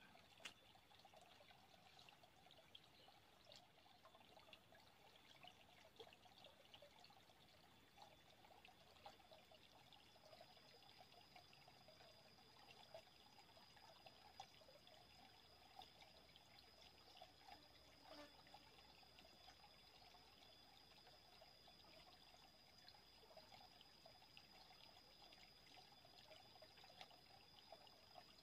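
Faint trickle of water running over the rocks of a small, shallow stream. A thin, steady high tone joins it about ten seconds in.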